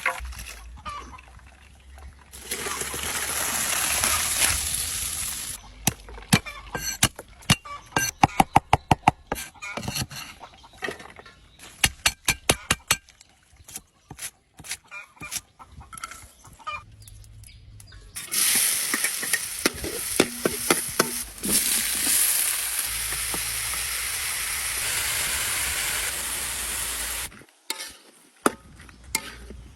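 Beef frying in a pan, sizzling in two long spells. In between comes a run of quick sharp clicks and knocks from stirring.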